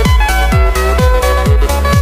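Background electronic dance music: a steady kick drum about twice a second under a stepping synth melody.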